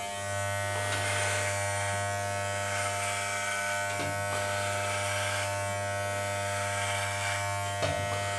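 Wahl Legend electromagnetic hair clipper running with a steady low buzz as it is passed over the scalp, cutting short hair.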